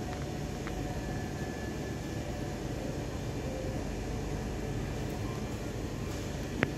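Steady low rumble and hiss of a shop's indoor background noise, with faint high tones and a single sharp click near the end.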